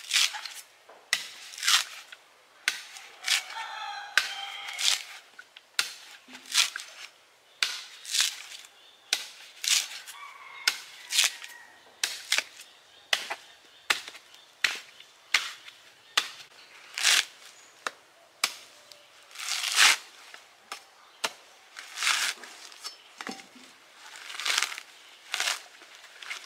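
Machete chopping into a coconut's fibrous husk, with repeated sharp strikes about once a second. Between blows the husk fibre tears as it is pried away.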